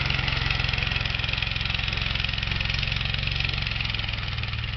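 Two-seat go-kart's engine running steadily as it drives through snow, growing a little quieter near the end.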